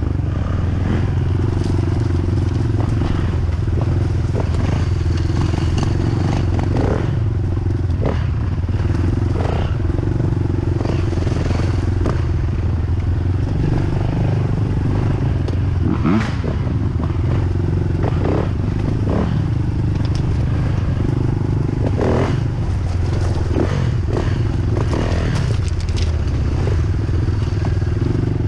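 Dirt bike engine running at a fairly steady low pitch while riding a trail, with frequent short knocks and clatter over it.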